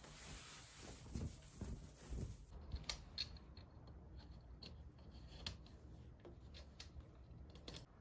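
A freshly washed sheer curtain being handled and rustling, then, after about two and a half seconds, a run of small sharp clicks as its hooks are fitted onto the curtain rail.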